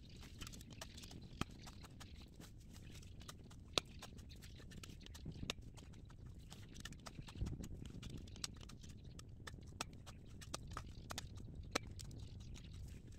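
Steel shovel digging into hard, stony soil: irregular sharp knocks and scrapes as the blade strikes ground that is as hard as rock.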